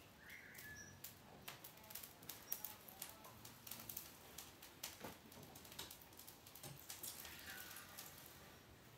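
Faint, irregular crackling and snapping of dry cypress twigs catching fire in the firebox of a wood-fired stove as it is being lit.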